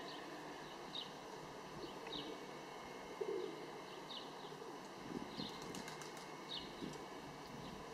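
A small bird chirping faintly, short high chirps about once a second, over a steady outdoor background hiss.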